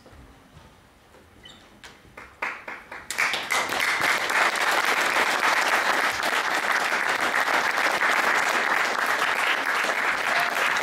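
Audience applauding: a few scattered claps about two seconds in, swelling into full, steady applause about a second later.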